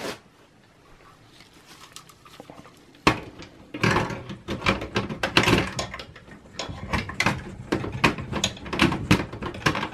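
A metal computer power supply being handled and fitted into a steel desktop case: a quick click, then from about three seconds in a busy run of clicks, knocks and scrapes of metal against metal.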